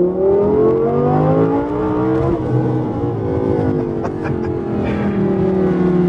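Audi R8 V10 Plus's naturally aspirated 5.2-litre V10, with a valveless Super Sprint race exhaust, pulling hard under acceleration. The note rises for about two seconds, breaks briefly, then falls away slowly.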